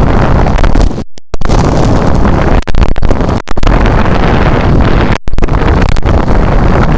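Strong wind buffeting the microphone: a loud, rough rumble that cuts out suddenly a few times for a split second.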